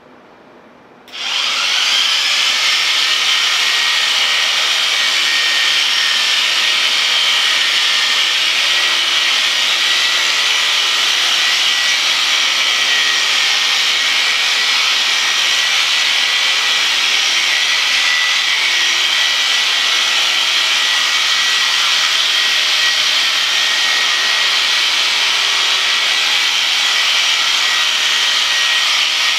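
Electric sheep shears switched on about a second in. They spin up to a loud, steady, high whine and run continuously while shearing a ram's fleece.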